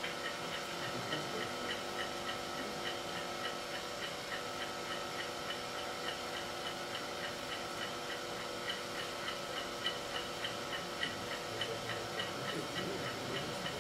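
Stopwatch ticking evenly throughout, timing a breath-hold dive, over the steady hum of an old film soundtrack.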